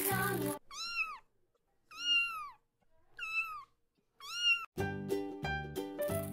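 A very young kitten mewing four times, each a short high call that rises and then falls in pitch. Background music stops just before the first mew and comes back in after the last.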